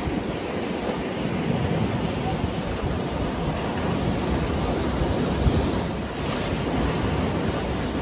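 Rough surf breaking and washing over a rocky shore and breakwater, a steady rushing noise with wind buffeting the microphone in low rumbles.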